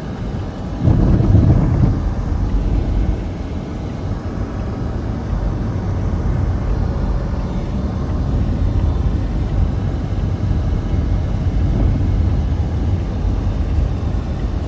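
Car driving slowly over a rough dirt track, heard from inside the cabin: a steady low rumble of engine and tyres, louder for about a second shortly after the start.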